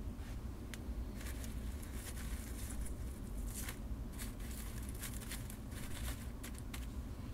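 Crackling and crunching of charred wood and coals as soap plant bulbs roasting in a small fire are turned by hand, many short sharp clicks from about a second in, over a low steady rumble.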